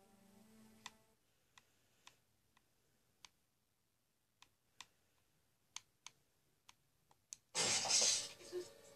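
Scattered sharp single clicks, about a dozen at uneven spacing. Near the end comes a sudden loud burst of noise lasting about a second.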